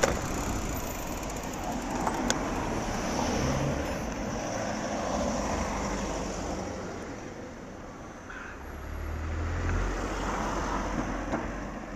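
Road traffic going by: a steady wash of passing cars, with a low rumble swelling about nine seconds in as a vehicle passes close.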